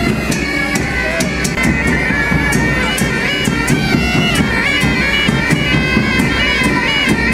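Pipe band bagpipes playing a marching tune that steps from note to note over a steady drone, with a regular sharp beat about twice a second.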